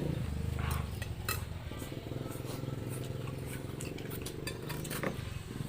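Cutlery clinking and scraping on a plate while eating noodles, as scattered sharp clicks over a steady low engine-like drone.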